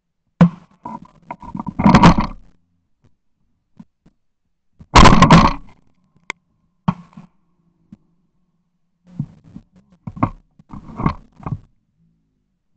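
A string of shotgun shots, with the loudest reports about half a second, two and five seconds in and smaller shots and knocks later on. They are heard from a camera mounted on the gun's barrel, so the gun's own shots are very loud and close.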